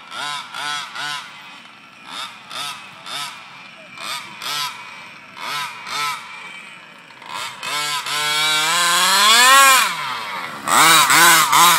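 Traxxas Jato nitro RC car engine being blipped in short revs, about two a second, then held in one long rev that rises and falls about eight seconds in, followed by three quick blips near the end.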